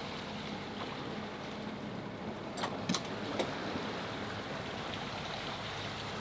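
A sailboat under way: a steady rush of water and wind with a low hum beneath it. A few sharp clicks or knocks come about halfway through.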